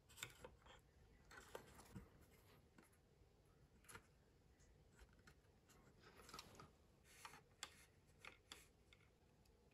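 Near silence, with faint irregular clicks and light scraping of small model parts being handled and fitted.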